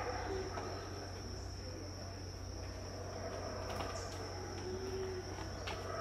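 Black howler monkeys roaring in the distance, the low roar swelling again in the second half. Under it runs a steady high-pitched insect drone.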